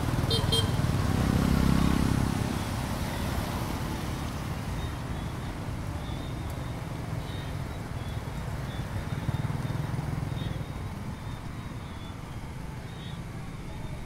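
Dense street traffic dominated by motor scooters and motorbikes, a steady mix of small engines humming. One engine passes louder about a second or two in and then fades, with a few short high beeps right at the start.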